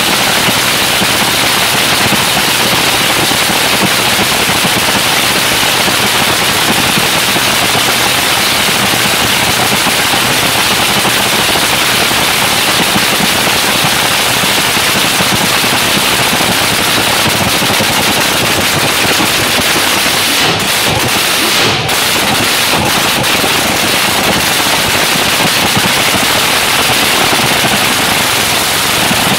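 Supercharged nitro-burning V8 of a fuel altered drag car running loudly and steadily during its warm-up, firing as a rapid, continuous crackle.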